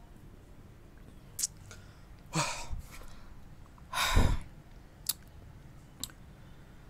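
A person's breathy exhales, a short one about two seconds in and a louder one about four seconds in, with a few faint clicks in between.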